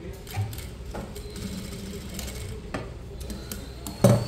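Industrial single-needle sewing machine running as it stitches through heavy embroidered lehenga fabric, with a few light clicks and a loud knock about four seconds in.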